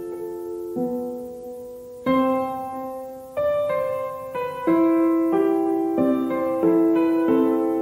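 Background piano music: chords struck about once a second, each left to ring and fade.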